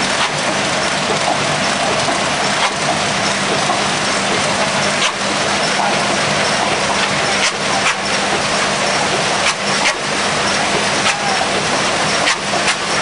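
Bottle multipacking machine and conveyors running: a loud, even machine din with a low hum, and irregular sharp clicks and knocks of the grippers and the PET bottles on the line, more of them in the second half.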